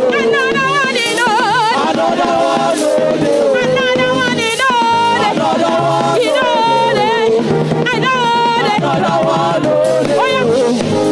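Live church praise music: a lead melody with a wide vibrato over band accompaniment, with steady low notes and regular shaker-like percussion.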